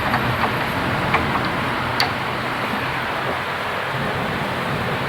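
Heavy rain and strong wind, a steady rushing noise, with a few sharp clicks about one and two seconds in.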